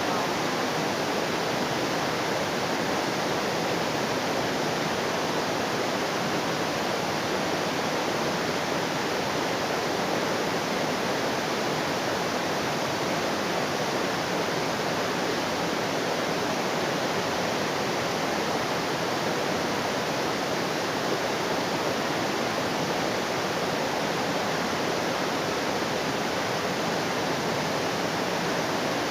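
Waterfall rushing steadily: an unbroken wash of falling water at an even level.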